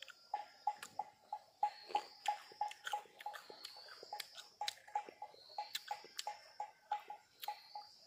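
Close chewing and crunching of crisp, sour green oleaster fruit: a fast run of short wet clicks and crackles, about three a second. A high, repeating buzz runs behind it.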